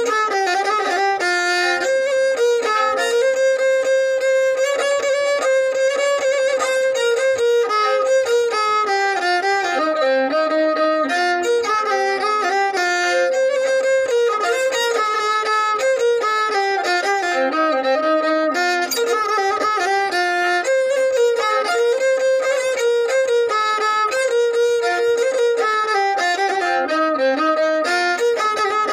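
Violin playing a continuous melody in quick, stepping notes.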